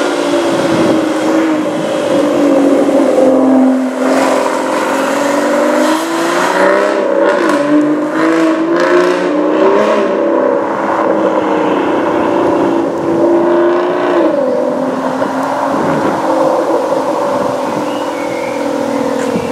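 2017 Aston Martin Vanquish S's V12 engine and exhaust running as the car drives past at low speed and moves away, its note rising and falling a few times midway before settling to a steady drone.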